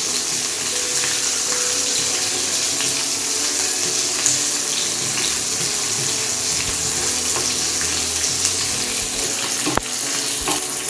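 Cubed onions and capsicum with minced garlic sizzling steadily in hot oil on a high flame, with a few light clicks.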